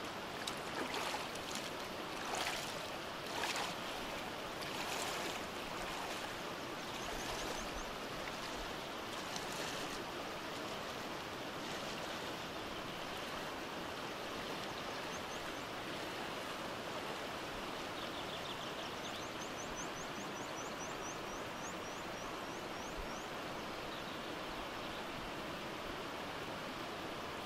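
Shallow mountain river running over stones, with a person wading across it: splashing steps through the water over the first ten seconds or so, growing fainter as he moves away.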